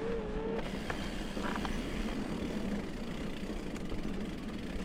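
Mountain bike rolling along a dirt trail: steady tyre and riding noise.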